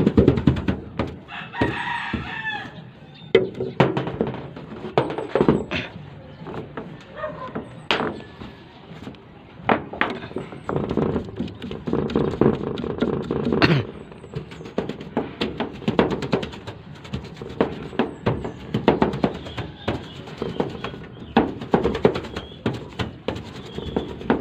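Paint roller loaded with gray epoxy primer rolling and scraping over corrugated metal roof sheets and working in the primer bucket, with repeated short knocks throughout. A brief pitched call sounds once, about two seconds in.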